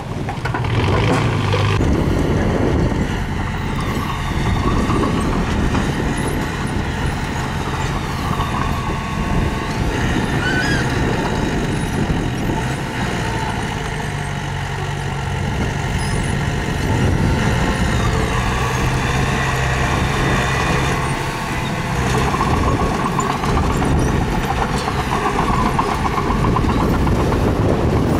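Heavy-machinery engine running under load, its low hum shifting up and down in pitch several times as the machine works.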